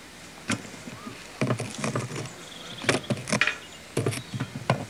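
Irregular clusters of sharp knocks and clicks, a dozen or so over a few seconds, above a faint steady hiss.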